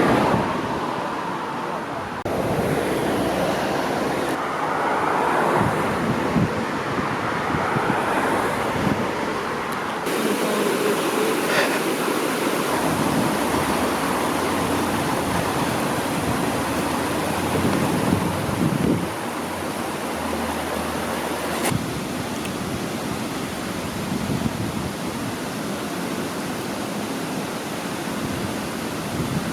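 A steady rush of falling water from a waterfall, shifting in level at a few points.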